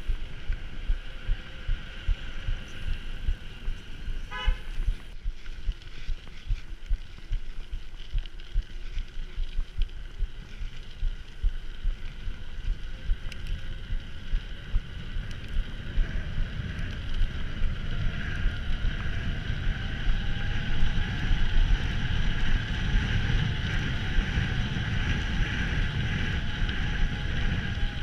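Mountain bike being ridden: a constant rumble of the ride with frequent small knocks from the bumps, and a steady hum over it. A faint tone rises in pitch through the middle and then holds.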